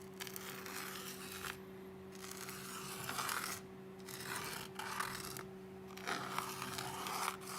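Hand-writing a word: about four spells of scratchy strokes, over a faint steady electrical hum.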